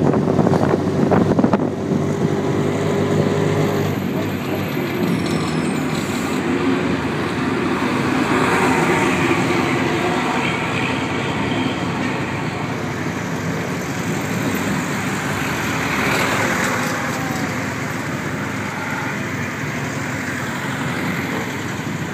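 Cocotaxi's small motor running, heard from inside its open cab, with street traffic around it. Wind buffets the microphone in the first second or so.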